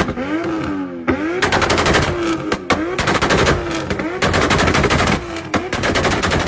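Toyota Supra engine revving up and down, then its exhaust firing rapid strings of loud crackling pops and bangs, many a second, with short revs in between.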